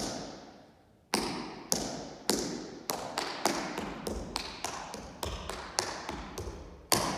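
Tap shoes striking a hardwood stage floor in a tap combination: a sharp strike, a pause of about a second, then a run of taps that settles into about three a second, with a louder stamp near the end. Each tap echoes and dies away.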